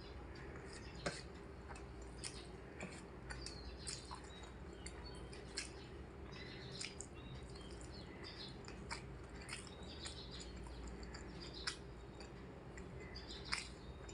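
Eating sounds: chewing with many small, irregular wet clicks and smacks, over a faint low background hum.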